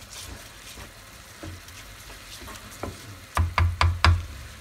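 Rice toasting in hot oil in a nonstick wok-style pan, sizzling steadily as a wooden spoon stirs through it. Near the end come four quick knocks.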